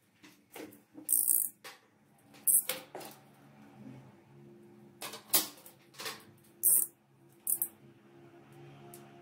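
Plastic CD case being handled and unwrapped: an irregular series of sharp clicks and crinkles of the case and its plastic shrink-wrap.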